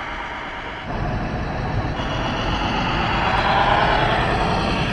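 Radio-controlled model tractor running in sand, its drive motor and gears whining. The sound grows louder about a second in, and a whine rises in pitch near the middle.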